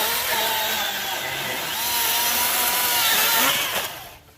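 Milwaukee battery-powered chainsaw cutting through a thick, hard log, which the owner takes for cherry: the electric motor whines and the chain rips through the wood, its pitch wavering under load. The saw winds down and stops near the end.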